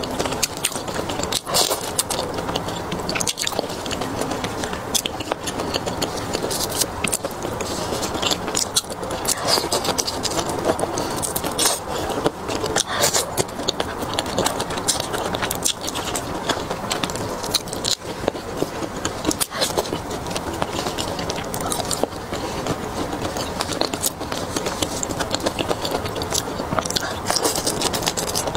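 Close-miked eating of raw marinated prawns: biting and chewing at the shells and heads, with a steady run of wet clicks and crackles.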